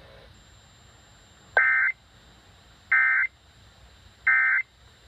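Emergency Alert System end-of-message data tones played over a radio: three short, harsh, buzzy bursts about 1.3 seconds apart. They are the digital signal that closes the tornado warning broadcast.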